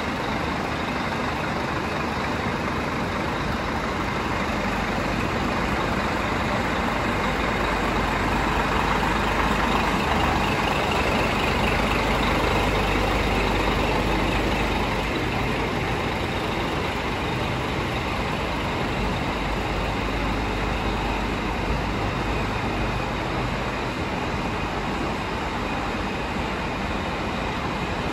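Scania R480 tipper lorry's diesel engine idling steadily, a little louder for a few seconds in the middle.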